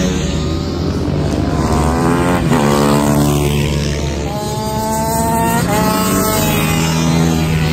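Several racing motorcycle engines running at high revs on the circuit, the pitch climbing and then dropping sharply on gear changes, twice. The sound swells as bikes pass close by near the end.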